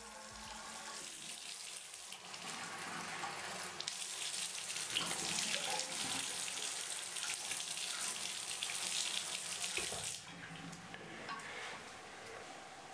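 Water running from a tap into a sink and splashing as it is scooped up by hand, louder from about four seconds in, then cutting off suddenly about ten seconds in. Faint rubbing of a towel follows near the end.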